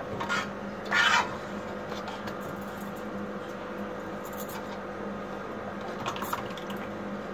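Short scrapes and knocks of plastic cups and a metal pan being handled, the loudest about a second in, over a steady low hum. Near the end, thick kulfi mixture starts pouring from the pan into a disposable plastic cup.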